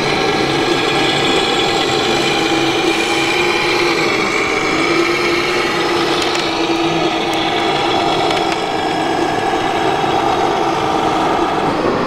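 Remote-control model truck running, a steady mechanical drone made of several held tones that keep the same pitch.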